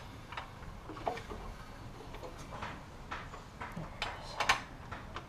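Irregular light metallic clicks and clunks as a 5.7 Hemi V8's crankshaft is turned over by hand with a long-handled wrench, its exposed valvetrain moving. The loudest is a quick double click about four and a half seconds in.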